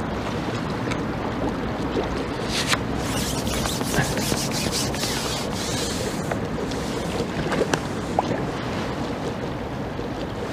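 Steady rushing wind noise on the microphone, with a few faint light clicks scattered through it.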